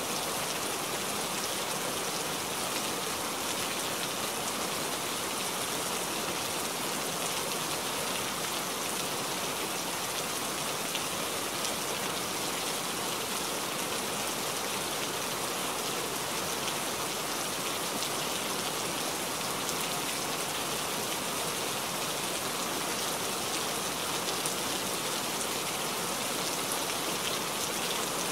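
Steady rain falling: an even hiss that holds level throughout.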